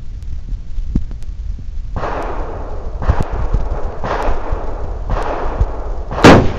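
One loud, sharp rifle shot near the end from an Arsenal SGL 20, an AK-pattern rifle in 7.62x39mm. It follows a string of fainter bangs with long fading tails, about one a second, over a steady low rumble.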